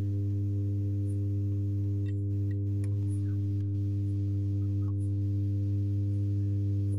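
Steady mains hum, a low tone near 100 Hz with evenly spaced overtones, from a powered Intex home theater amplifier. This noise is the fault the unit is being repaired for.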